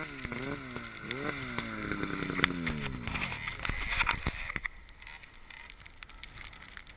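Snowmobile engine revved in quick repeated throttle blips, then its pitch slides down as the revs drop away, leaving only faint noise from about four and a half seconds in. A few sharp clicks sound over it.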